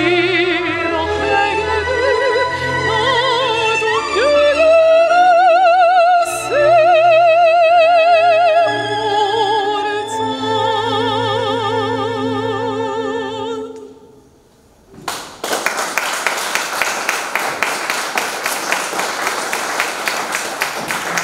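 A woman singing in operatic style with a wide vibrato over a low accompaniment, the song ending about 14 seconds in. After a short pause, an audience applauds.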